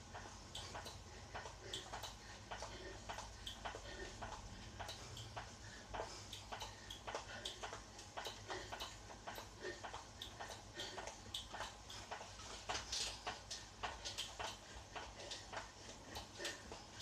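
Indoor spin bike clicking and knocking in quick succession as it is pedalled hard out of the saddle, with a low steady hum underneath.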